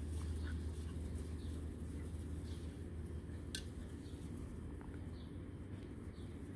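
Outdoor background: a steady low rumble with faint, scattered short bird chirps, and a single sharp click a little past halfway.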